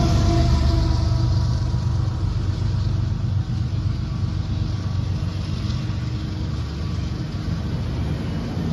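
Diesel locomotive engine rumbling, its engine note fading away gradually.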